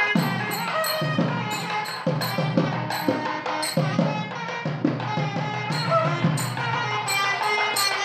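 Background music: a melody on a nagaswaram, a South Indian double-reed horn, over a steady beat of drums and jingling percussion.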